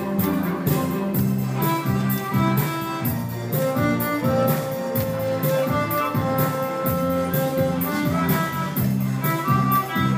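Solo violin playing a melody of long held notes over a backing track with a steady drum beat and a repeating bass line.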